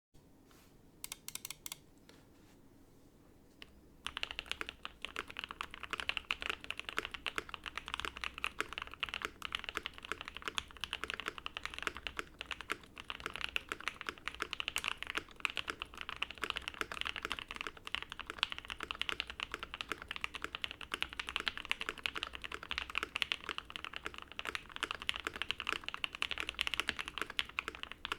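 Typing on a custom mechanical keyboard with lubed Banana Splits linear switches on a POM plate and GMK keycaps, a muted, smooth clacking. A few separate keystrokes come first, then fast continuous typing starts about four seconds in.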